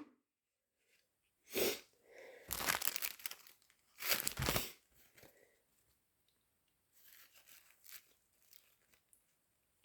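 Tissue paper rustling and crumpling in three short bursts within the first five seconds, the handling of a tissue after a sneeze.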